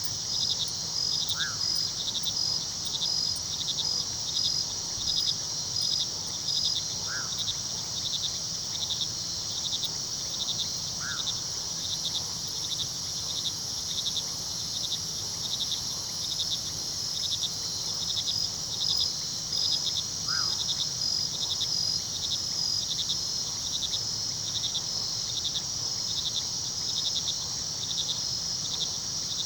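A night chorus of crickets chirping in a steady rhythm, about two chirps a second, over a continuous high insect trill. Four brief rising calls come through faintly at scattered moments.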